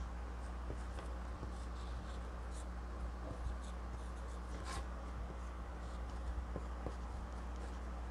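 Dry-erase marker writing on a small whiteboard in short strokes, one stronger about halfway through, over a steady low hum.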